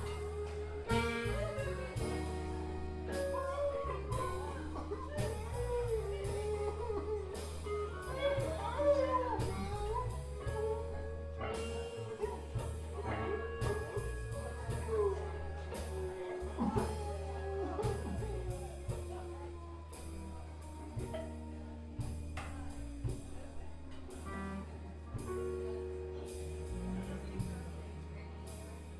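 Live blues band playing an instrumental passage: accordion, electric guitar, bass guitar and drum kit, with held accordion chords over a steady drum beat.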